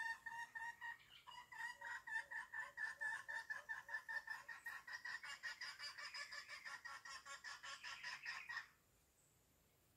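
A chicken calling in a rapid, even series of short notes, about five a second, which stops abruptly near the end.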